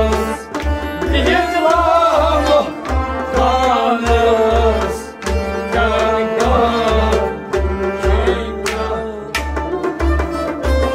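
A Kashmiri Sufi ensemble playing: harmonium and a bowed sarangi carry a wavering melody over steady, regularly repeating hand-drum strokes.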